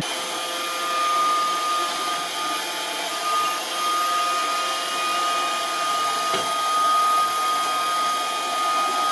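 Roomba robot vacuum running steadily: even suction and brush noise with a high motor whine held on one pitch.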